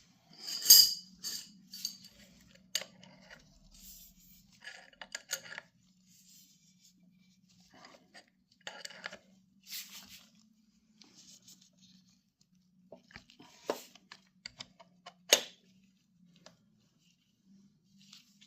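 Scattered metal clinks, taps and scrapes of a chain riveting tool and its press plate being handled and fitted over a motorcycle chain's master link, loudest about a second in, with two sharp clicks near the end. A faint steady hum runs underneath.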